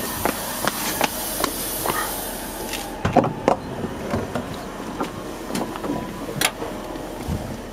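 Hurried footsteps and knocks of the camera being handled by someone running, about two or three a second at first and fewer later. Wind rushes over the microphone for the first three seconds, then stops.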